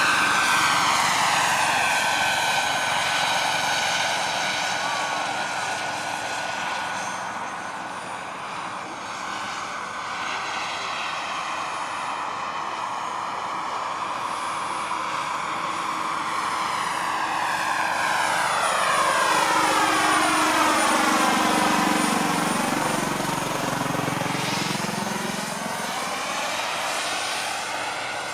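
Turbine engines and rotors of large-scale RC Bell JetRanger model helicopters in flight: a steady high turbine whine over a rushing rotor sound. In the second half one helicopter passes close, the sound swelling, sweeping down and back up in pitch, with a deeper rotor beat.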